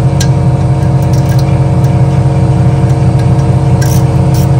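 A loud, steady motor drone holding several fixed pitches, with a few faint clicks of a ratcheting gear wrench tightening a bolt on the front strut assembly.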